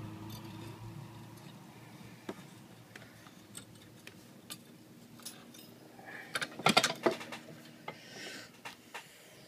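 Handling noises at a workbench: a few scattered light clicks and taps, then a quick cluster of louder clacks about two-thirds of the way through, as a tube of saw-blade lubricating wax is picked up and handled.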